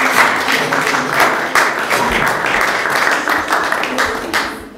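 A small audience applauding, steady dense clapping that fades out near the end.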